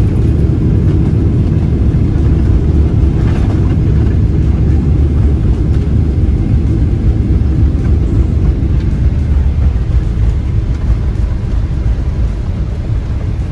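Boeing 777-200LR rolling out along the runway after touchdown, heard from inside the cabin: a loud, steady low rumble that eases a little near the end as the plane slows.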